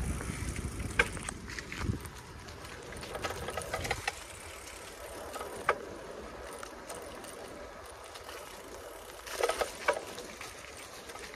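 Bicycle riding along a leaf-strewn path: steady tyre noise with sharp rattles and clicks from bumps, about a second in, near six seconds and a cluster around nine to ten seconds. A low rumble of wind on the microphone in the first four seconds.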